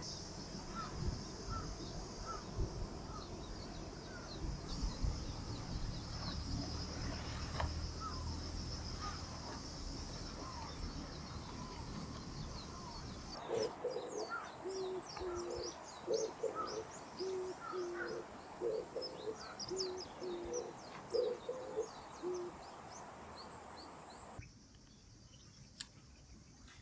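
Evening outdoor ambience. It opens with a steady high insect drone and a bird chirping over and over. After a cut, a low two-note hooting call repeats about once a second for several seconds, with insects trilling and chirping above it, and it ends more quietly.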